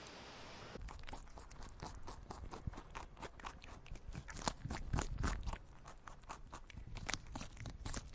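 Rapid, irregular crunching, several crunches a second, starting about a second in and cutting off suddenly near the end.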